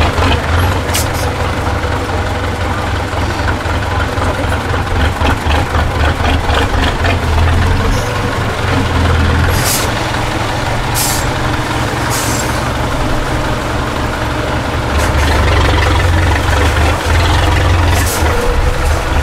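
Heavy off-road truck's diesel engine running at low revs under load, a steady deep rumble that grows louder over the last few seconds. Several short sharp hisses of air cut through it.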